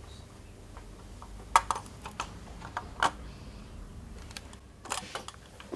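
A few light, irregular clicks and taps from a computer motherboard being handled, its hard plastic and metal parts knocking against fingers and each other.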